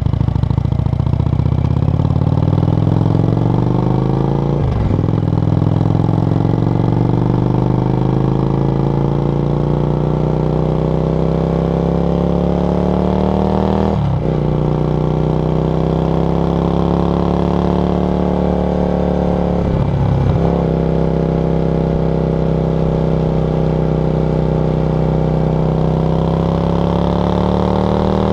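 Yamaha XV 535 Virago's V-twin running through a SilverTail K02 aftermarket exhaust, accelerating under load. The pitch climbs steadily and drops sharply at three upshifts, about 5, 14 and 20 seconds in.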